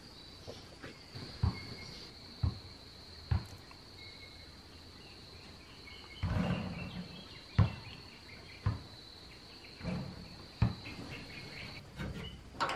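Insects keep up a steady high-pitched drone, with a few dull thumps and a brief rustle from movement nearby.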